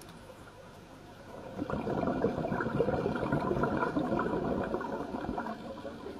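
Scuba diver exhaling through the regulator underwater: a burst of bubbling and gurgling that swells up about a second and a half in and dies away near the end.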